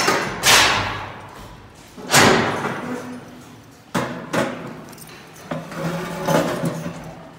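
A series of loud bangs and crashes, the biggest about half a second and two seconds in and more around four seconds in, each trailing off over about a second.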